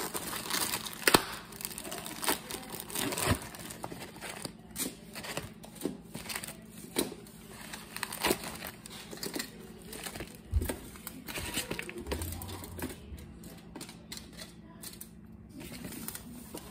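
Crinkling foil and plastic wrapping as fried rolls are handled and laid out on a lined tray, with irregular short crackles.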